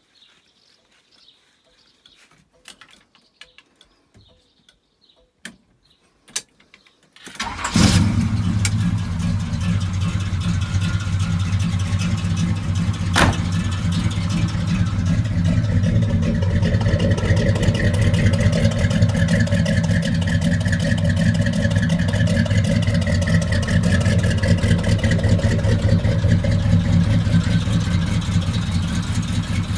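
A few faint clicks, then a 383 stroker small-block Chevrolet V8 starts about a quarter of the way in and settles into a steady idle.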